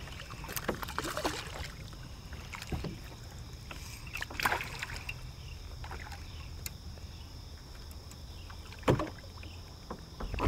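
Fishing kayak on a river: steady wind and water noise with a few sharp knocks and clicks of gear and paddle against the kayak hull, the clearest about halfway through and near the end.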